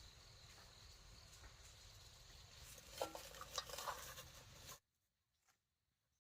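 Light clinks and knocks, as of handled objects, over a steady background hiss, busiest about three to four seconds in, then cutting off abruptly.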